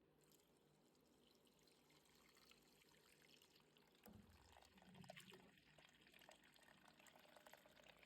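Faint sound of water being poured and trickling, growing a little louder about halfway through.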